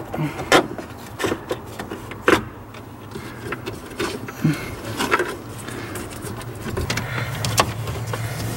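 Scattered sharp clicks, taps and knocks of hands and tools working on the wiper switch and wiring behind a pickup dashboard, over a low steady hum that grows stronger near the end.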